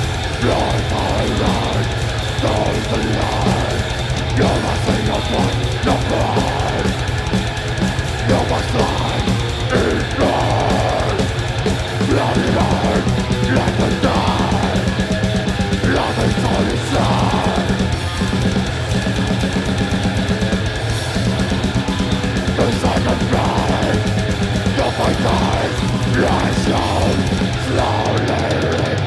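Death metal band playing live: heavily distorted guitars and bass over fast, dense drumming, with growled vocals over the top.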